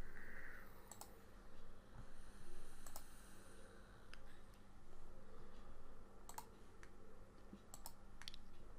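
Computer mouse clicking: a handful of sharp, separate clicks spaced irregularly, a quick cluster of them near the end, over a faint steady hum.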